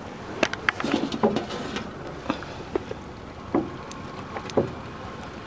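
Irregular light knocks and taps from handling a net and gear in a wooden fishing boat, about a dozen scattered through, thickest in the first two seconds.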